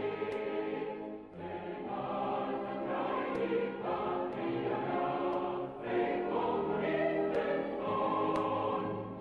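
Choral music: a choir singing sustained, held chords that change every second or two.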